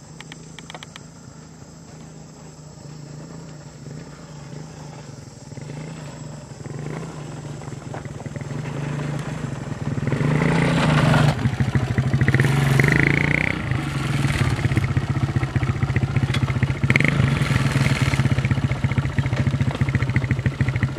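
Small step-through motorbike engine running as the bike approaches, growing steadily louder until it is close by about halfway through.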